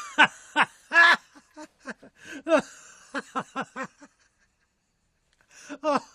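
A person laughing in short pulses for about four seconds, then, after a pause, laughing again briefly near the end.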